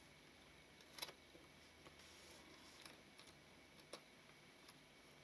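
Near silence with a few faint clicks and ticks from the small metal aperture ring and shutter parts of the lens being handled and seated. The two clearest come about a second in and near four seconds.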